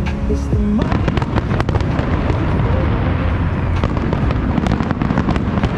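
Fireworks going off: a dense, continuous crackling of many small sharp pops over low rumbling booms. Music with held notes stops a little under a second in.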